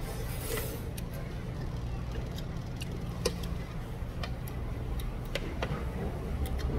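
Chopsticks clicking and tapping against a plate as side dishes are picked up, in scattered light clicks with one sharper click about three seconds in, over a steady low hum.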